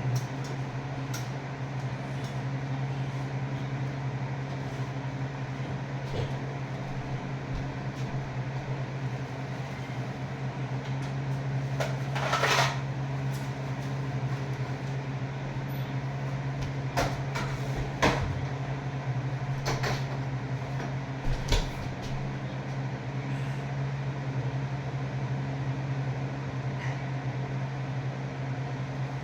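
A steady low mechanical hum throughout, with a handful of sharp clicks and knocks: one longer noisy rattle about twelve seconds in and several short clicks between seventeen and twenty-two seconds in.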